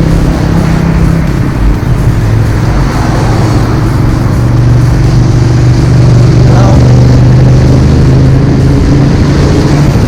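Road vehicle engine running steadily close by: a loud low hum that drops slightly in pitch about a second and a half in, then holds.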